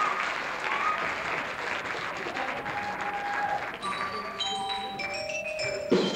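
Audience applause fading, then from about four seconds in, single xylophone notes struck one after another at different pitches, each ringing briefly. A sudden louder thump comes near the end.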